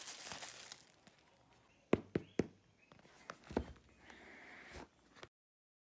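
Plastic wrapping on a phone box crinkling at first, then a series of sharp taps and knocks from the box being handled, with a short scraping hiss near the end. The sound cuts off abruptly.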